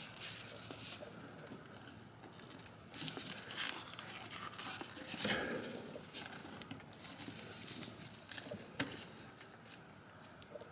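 Gloved hands working a rubber breather hose onto an oil catch can: scattered rustling, scraping and small knocks, loudest a little past halfway, with one sharp click late on.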